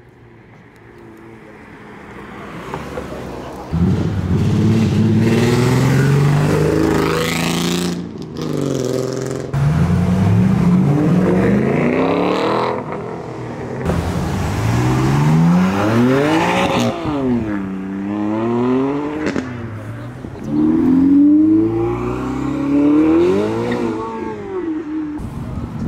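Performance car engines accelerating hard away, revving up, the pitch climbing and dropping again and again. They build up over the first few seconds and are loud from about four seconds in.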